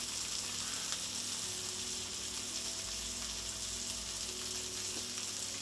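Butter sizzling steadily in a skillet on the stove, with a piece of amberjack frying in it.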